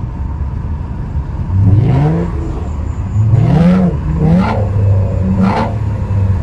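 Lexus car engine and exhaust idling, then pulling hard from about a second and a half in: the revs climb and fall back three times as it shifts up through the gears, then hold steady.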